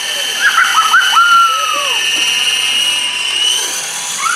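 Large battery-powered counter-rotating RC helicopter in flight, its motors and rotors making a steady high-pitched whine that rises slightly about three seconds in, with short high voices calling out over it in the first two seconds.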